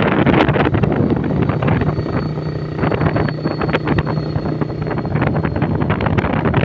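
Motorcycle riding at speed, with wind buffeting the microphone over a steady, low engine hum.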